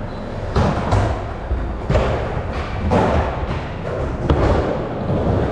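Skateboard wheels rumbling over wooden ramps, with repeated thuds and clacks of boards striking the ramp surface, the sharpest a little after four seconds in.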